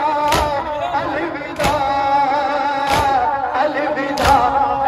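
Mourners doing matam: the hands of many men strike their chests together in unison, four times, about every second and a half, over voices chanting a nauha in long held notes.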